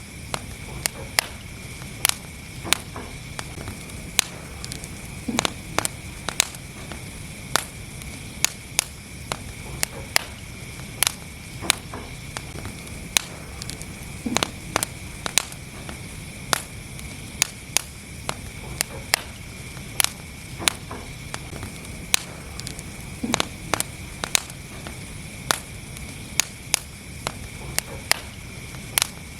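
Wood fire burning in a fireplace, crackling and popping irregularly, a couple of sharp pops a second over a steady low rumble and hiss.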